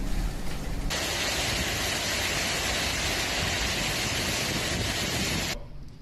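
Heavy storm rain pouring down as a dense, steady hiss. In the first second there is a low rumble under the rain; then the sound switches abruptly to an even, brighter rush of downpour, which cuts off suddenly near the end.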